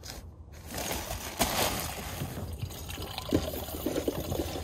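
Water trickling from the spigot of a blue plastic water jug.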